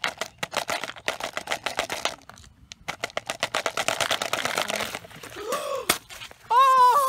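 Mentos candies clicking and rattling in quick succession as they are fed through a plastic tube into a two-liter Coke bottle, in two runs. Near the end a man cries out loudly.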